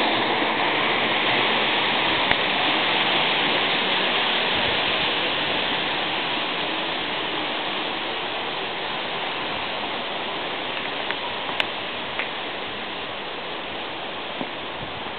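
Rushing water of a spring-fed mountain stream, a steady dense rush that slowly grows fainter, with a few small clicks.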